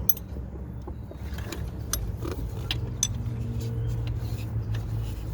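Scattered light clicks and clinks of a wrench and tools being handled, the sharpest right at the start, over a steady low hum.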